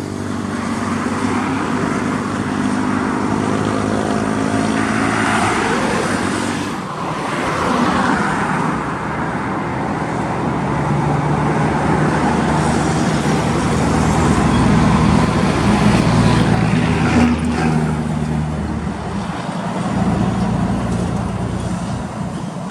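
Heavy road vehicle engine running, its pitch shifting up and down, among general traffic noise.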